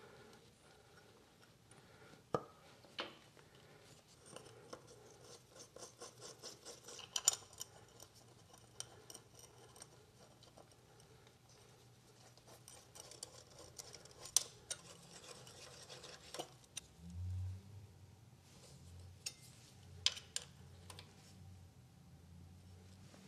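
Faint small metal clicks, taps and scrapes as a steel block-off plate is fitted over a thin TPU gasket on a diesel engine block and its bolts are threaded in by hand. A low hum comes in about two thirds of the way through.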